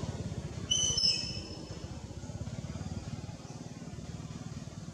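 A baby macaque gives two brief high-pitched squeaks about a second in, over a steady low background hum.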